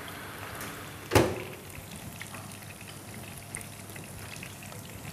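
An oven door shut with a single metallic clank about a second in, ringing briefly. Under it there is a faint, steady sizzle from a pan on the stove.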